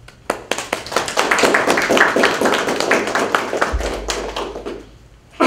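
A small audience applauding: dense, irregular clapping that starts just after the opening, is fullest through the middle, and thins out near the end.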